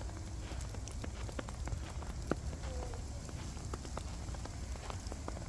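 Winter-storm precipitation pattering on surfaces: scattered irregular ticks of drops or ice pellets striking, over a steady low rumble.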